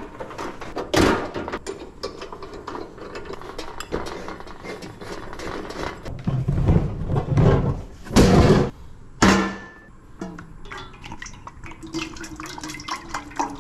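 Clatter and clunks of a two-burner propane camp stove being opened and a green propane cylinder being handled and fitted to it, with a few loud knocks. Near the end, cooking oil pours from a plastic jug into a steel pot.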